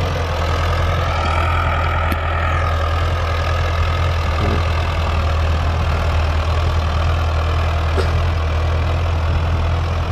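Ford farm tractor's diesel engine running steadily as the tractor turns and drives back for another pass.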